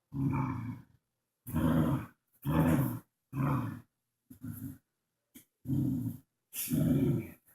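Dog growling in a series of short bursts, about seven in all, each roughly half a second long with brief pauses between: play growls over a toy.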